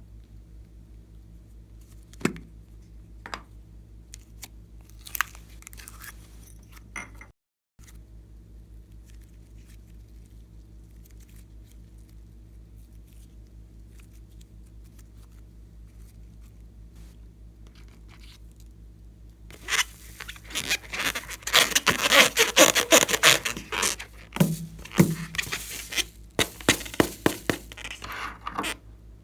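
Slime being worked by hand: a few sharp sticky clicks at first, then after a long quiet stretch a dense run of crackling and popping from the slime being pressed and stretched, lasting most of the last third.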